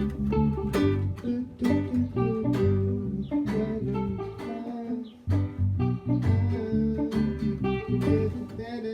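Music led by plucked and strummed guitar, with a steady rhythm of notes.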